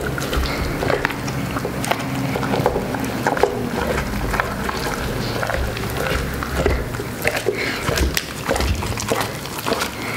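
A large mastiff-type dog chewing roast chicken off the floor, with frequent sharp crunches of bone and wet chomping throughout.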